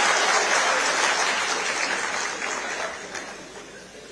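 Audience applauding, the clapping fading away over about three seconds.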